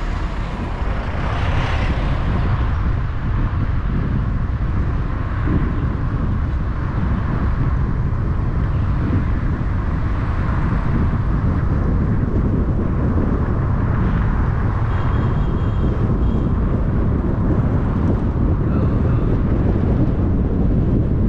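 Steady low rumble of road and traffic noise from a car driving through city streets.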